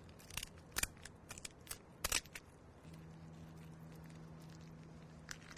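Kitchen shears snipping through a lobster tail's shell: a run of sharp snips and shell crackles, the strongest about two seconds in. A faint steady hum comes in about three seconds in.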